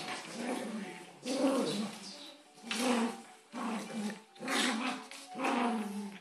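Dogs growling in a string of about six short growls, rising and falling in pitch, during rough play-wrestling.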